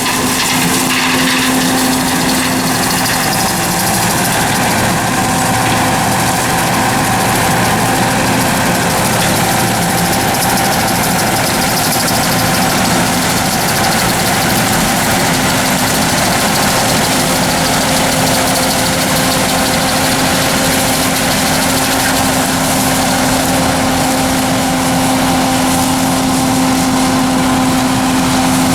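Combine harvester running steadily, with an even engine drone and mechanical hum that holds unchanged throughout.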